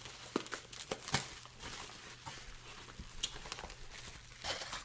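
Plastic bubble wrap being torn open and pulled off by hand, crinkling with irregular sharp crackles.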